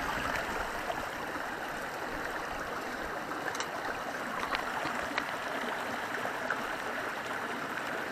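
Rushing mountain stream, a steady even wash of water, with a few faint clicks over it.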